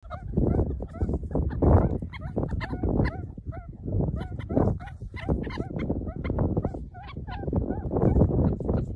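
Meerkat pups chirping: many short, high calls that bend up and down in pitch, coming quickly one after another, over a low rumble.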